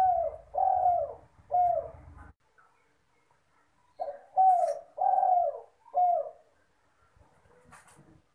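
Spotted dove (derkuku, tekukur) cooing: two phrases of three or four coos each, with a gap of about two seconds between them. A low rumble sits under the first phrase.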